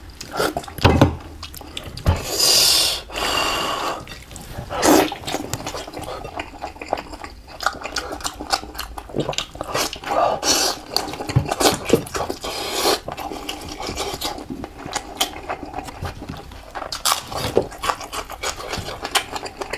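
Close-miked wet eating sounds of a person sucking and chewing meat off a piece of braised tuna head: irregular smacks, sticky clicks and slurps, with a longer hissing slurp a couple of seconds in.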